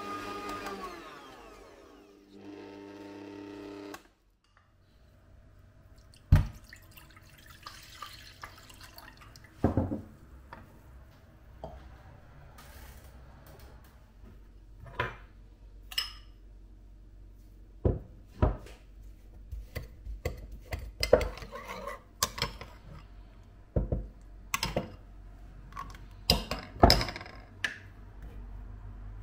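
An electric kitchen mixer's motor winds down and stops about a second in, followed by a brief steady hum. After that come irregular knocks, clinks and clatter of kitchen utensils and bowls, a few of them sharp and loud.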